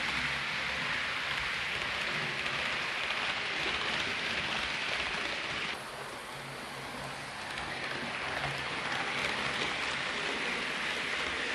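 Hornby OO gauge Class 390 Pendolino model train running along its track: a steady rushing whirr of motor and wheels on rail, dipping in level about six seconds in and then building back.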